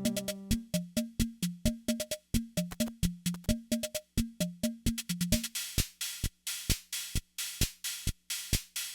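A Yamaha PS-20 portable keyboard's built-in rhythm section plays a preset drum pattern on its own: short electronic drum blips in a steady beat with ticking hi-hats. About five and a half seconds in, the pitched drums stop, leaving only crisp hi-hat and snare-like hits.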